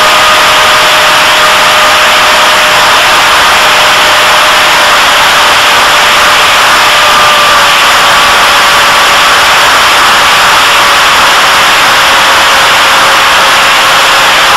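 A model airplane's motor and propeller, recorded by its onboard camera in flight: a steady whine that sags slightly in pitch, over a loud rush of wind and propeller wash.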